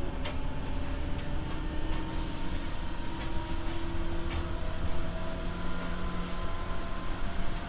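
Seibu 301 series resistance-control electric train heard from inside a motor car: traction motor and gear whine slowly rising in pitch as the train gathers speed, over a steady rumble of wheels on rail. A brief hiss comes about two seconds in.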